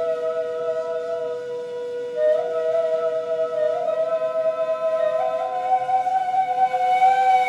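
Two neys, end-blown reed flutes, playing an improvised modal duet in long held notes, one line sounding just above the other with breathy air noise. The upper note slides up a little about two seconds in and again about five seconds in.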